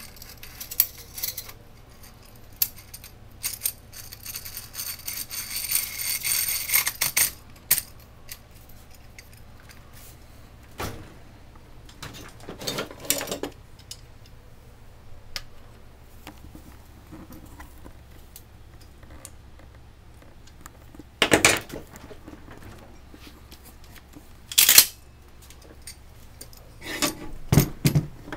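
Metal clicks, clinks and rattles of Remington 870 pump shotgun parts being handled and fitted together. A busy run of small clicks with a brief rattle comes in the first several seconds, then a few separate, sharper clacks.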